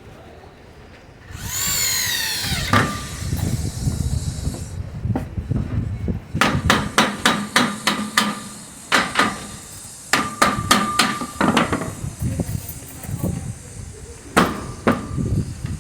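Hammer blows during deck building: fast clusters of sharp strikes with a ringing note through the middle, then two more strikes near the end. Near the start, a brief whine that falls in pitch.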